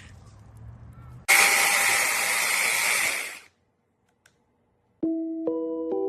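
Rivlox 4-inch cordless electric mini chainsaw's motor running for about two seconds, then cutting off. After a short silence, background music begins near the end.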